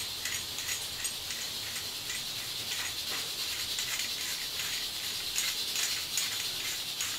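Faint small clicks and light scraping as the parts of a metal pop-up sink drain are turned and pulled apart by hand, rubber gaskets and a plastic washer rubbing on the metal body, over a steady faint hiss.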